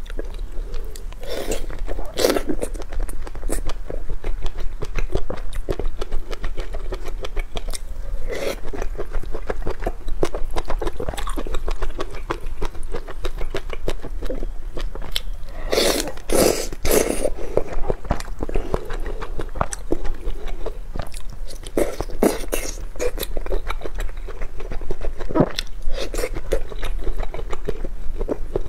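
Close-miked eating of spicy instant noodles: steady wet chewing and mouth clicks, with a few louder slurps of noodles.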